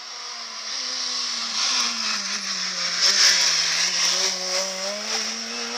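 Peugeot 206 rally car coming in and rounding a hairpin: its engine note sinks as it slows for the bend, then climbs again as it powers out. A rush of noise grows with it and is loudest about three seconds in.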